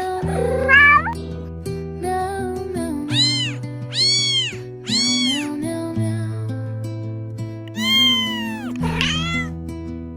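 Cat meows, several short calls that rise and fall in pitch and then a longer one near the end, over gentle background music.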